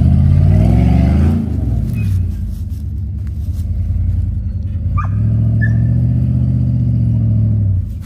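Off-road vehicle's engine on a trail drive. Its revs fall away over the first second and a half, run low, then pick up again about five seconds in and drop off near the end. There is a short high squeak about five seconds in.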